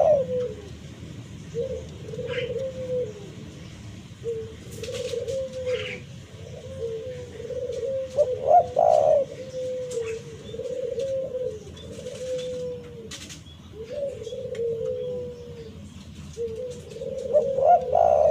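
Spotted dove (tekukur) cooing: a low, rolling coo phrase repeated about every two seconds, with louder notes about halfway through and again near the end.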